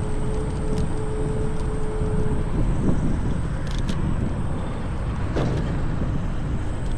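Steady low rumble of wind and road noise while riding an electric scooter. A steady hum stops about two and a half seconds in.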